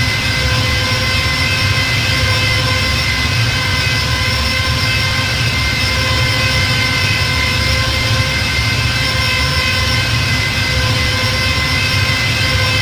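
TIE fighter engine sound effect running as a steady drone: several held tones stacked over a low rumble and hiss, unchanging throughout.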